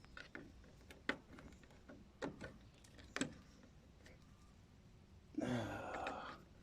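A few sharp plastic clicks, about a second apart, as a cracked control knob is worked on an air conditioner's control shaft, then a short breathy sound near the end.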